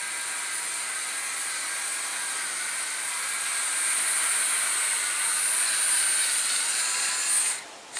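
Bissell PowerForce Compact Turbo vacuum cleaner running with a steady high hissing whine, switched off near the end.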